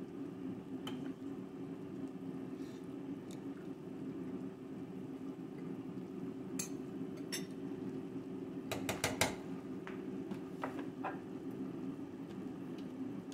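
A metal spoon and ladle clinking against a steel stockpot and a bowl as soup is spooned out, with a quick run of four clinks a little after the middle, over a steady low hum.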